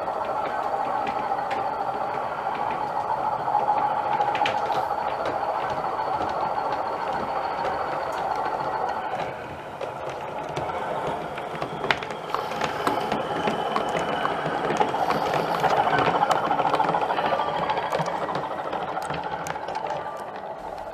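An O gauge model train running on the layout: a steady mechanical rumble of motor and wheels on the track, with scattered clicks. It dips about halfway through, then swells again as the train comes closer.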